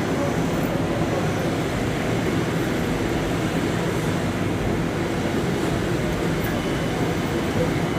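Long Island Rail Road commuter train running, heard from inside the passenger car as a steady, even noise of wheels and motors.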